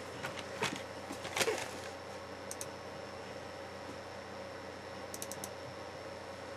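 A few faint clicks and taps in the first two seconds, then quiet room hiss with a couple of very faint high ticks.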